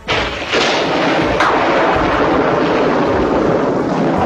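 A loud, dense rumbling noise like a blast or collapse that starts suddenly and holds steady, with a sharp crack about a second and a half in.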